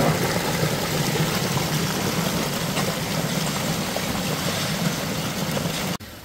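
Muddy floodwater rushing and pouring over a wall and down a path, a steady loud rush of water. It cuts off abruptly near the end.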